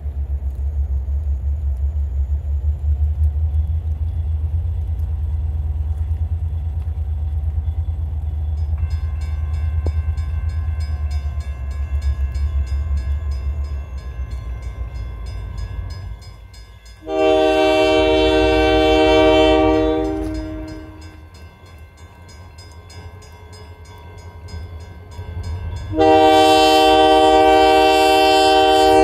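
A grade-crossing warning bell starts ringing about a third of the way in as the crossing activates. Then an approaching Portland & Western Railroad locomotive sounds its multi-chime air horn in two long blasts of about three seconds each, the opening of the grade-crossing horn signal. A low rumble fills the first half.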